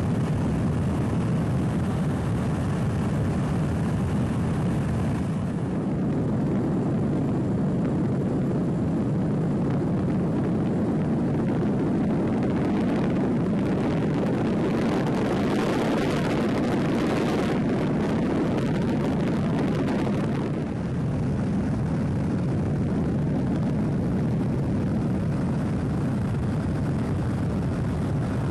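Steady drone of an aircraft in flight, heard from on board, with extra hiss added for several seconds midway.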